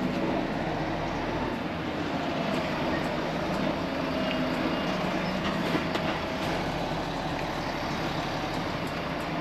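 Volvo FH 540 truck's 13-litre six-cylinder diesel running steadily, with a few faint clicks over the hum.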